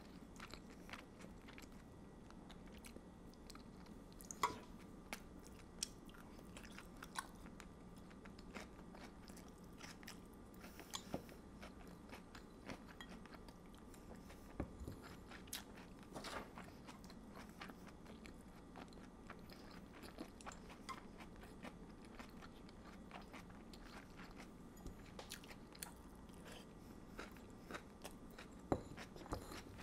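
Close-miked chewing and biting of red wine marinated chicken and vegetables, with soft mouth sounds and many scattered small clicks, a couple of them sharper than the rest.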